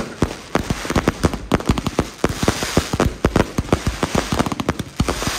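Fireworks battery firing a rapid, irregular string of shots and bursting bangs, several a second.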